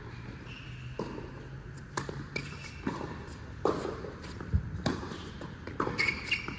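Tennis ball knocks on racket and court during play, about one a second, with a few short shoe squeaks.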